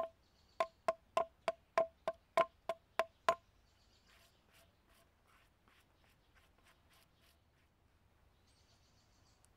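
Hatchet blows hewing a flat face on a log: quick, even strikes about three a second, each a woody knock with a ringing tone, stopping about three seconds in. Fainter, lighter strokes follow for a few seconds.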